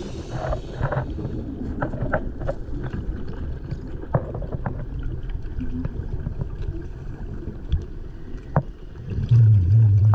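Underwater ambience through a camera's microphone: a steady low rumble with scattered sharp clicks and crackles, and a louder low hum starting about nine seconds in.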